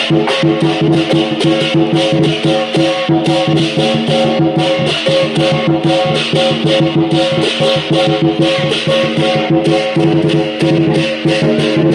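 Lion dance percussion: drum, cymbals and gong beaten in a fast, steady rhythm, with cymbal clash throughout and a steady ringing tone underneath.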